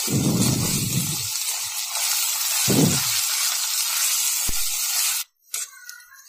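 Sliced onions and ginger-garlic paste sizzling in hot oil in a steel pan, with a spoon stirring and knocking against the pan a few times. The sizzle cuts off suddenly a little after five seconds.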